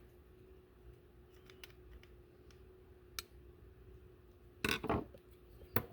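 Small parts of an old Bakelite-housed wall switch being handled and fitted together: a light click about three seconds in, a brief clatter of scraping and knocking near five seconds, and a sharp click near the end, over a faint steady hum.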